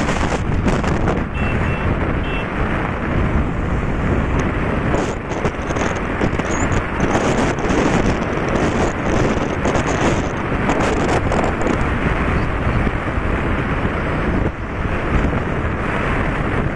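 Wind buffeting the microphone on a moving motorcycle at highway speed, with steady engine and road noise underneath.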